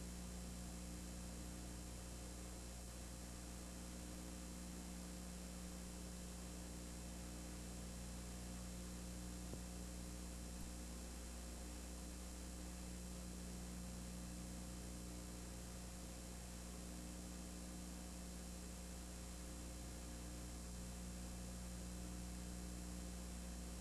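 Steady electrical hum with an even hiss over it and nothing else: the noise floor of an old videotape transfer with no game sound on it.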